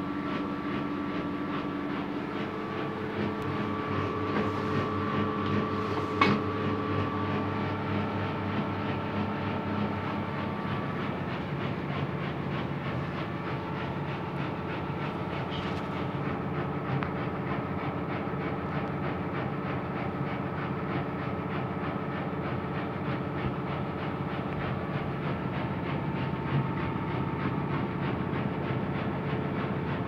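Whirlpool FSCR90425 front-loading washing machine on its 1000 rpm spin: the drum spins with a steady motor whine of several held tones over a rumble. A single sharp click about six seconds in.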